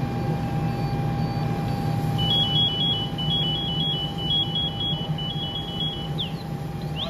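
A fire engine runs steadily with a low rumble and a constant whine. About two seconds in, an electronic alarm starts beeping in quick high two-note groups, four groups in a row, followed by a few short rising chirps near the end.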